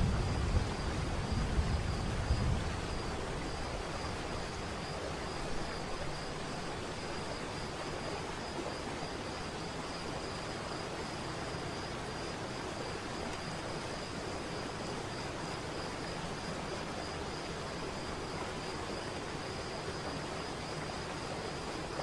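Waterfall: a steady rush of falling water, with a deeper rumble in the first few seconds that fades away.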